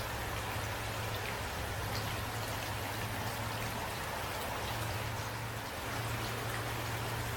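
Steady rain falling, an even hiss with a few single drops ticking out above it.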